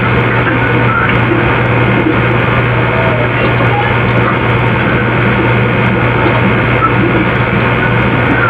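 Steady hiss and low hum of recording noise, even throughout with no distinct events, from an otherwise soundless room.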